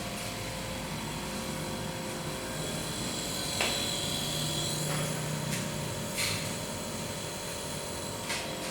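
Nebulizer compressor running with a steady hum, used to give steam treatment for a lingering cough and flu. A few short sharper sounds come over it, one about three and a half seconds in and others near the middle and end.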